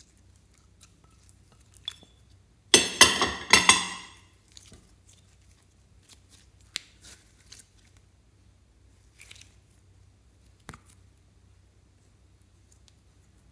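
Clear slime being peeled up and squeezed by hand, with a loud run of crackling pops and clicks lasting about a second and a half, then scattered soft sticky clicks and taps against a glass dish.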